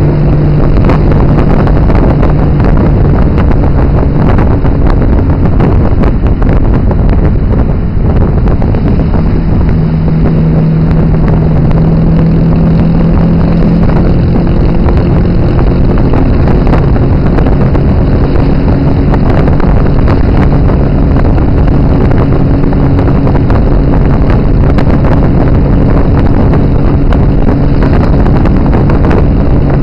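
Tuk-tuk engine running loud while under way, its note stepping in pitch a couple of times. Heavy wind buffets the microphone and there is road noise over the top.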